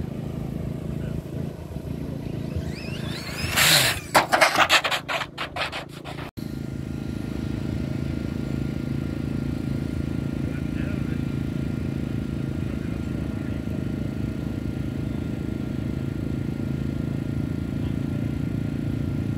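An RC drag car's run: a rising whine as it accelerates down the strip, then a loud, rapid, rattling burst as it comes past about three and a half seconds in. After a sudden cut about six seconds in, a steady low hum.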